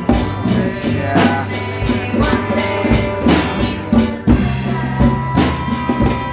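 Live rock band playing in 3/4 time: electric bass and electric guitar over a drum kit and djembe hand drums, with steady drum strikes about twice a second.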